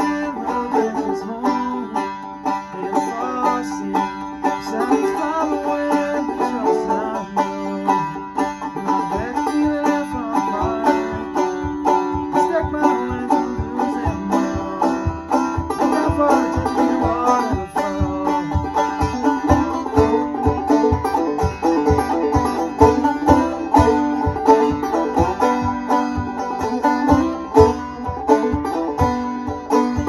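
Banjo picking an instrumental passage of a bluegrass-style folk tune, a quick run of plucked notes. A steady low beat joins about nine seconds in.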